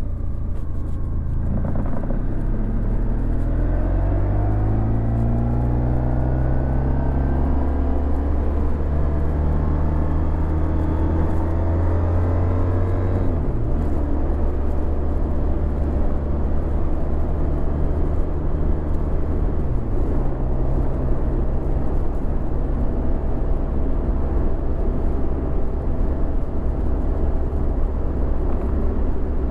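Honda VFR1200X Crosstourer's V4 engine through an Akrapovic titanium exhaust while riding. The engine pitch climbs for about ten seconds, drops suddenly at an upshift, shifts once more, then holds steady at a cruise.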